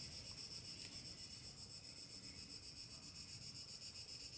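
Faint, steady high-pitched chirring of insects with a fine regular pulse, over the soft rubbing of cotton yarn drawn through stitches by a crochet hook.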